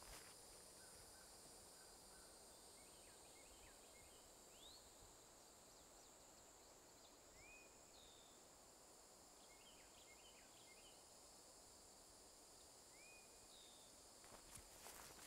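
Quiet woodland ambience: faint distant birdsong in scattered chirps and short rising whistles, twice repeating a similar phrase, over a steady high hiss.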